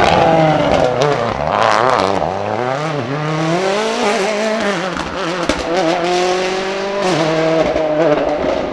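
Ford Fiesta RS WRC rally car's turbocharged 1.6-litre four-cylinder engine revving hard out of a wet hairpin and accelerating away. The engine note climbs and drops sharply with throttle and gear changes, with a brief noisy rush about two seconds in.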